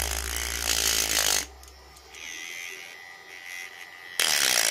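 Small DC motor spinning a homemade sandpaper drum, with a steel scissor blade grinding against the abrasive to sharpen it. The grinding stops about a second and a half in, leaving a much quieter stretch, and starts again near the end.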